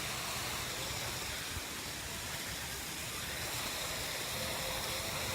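Steady, even background hiss with a faint thin hum.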